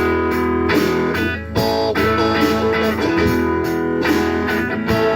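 A band playing an instrumental passage, led by strummed guitars, with no singing.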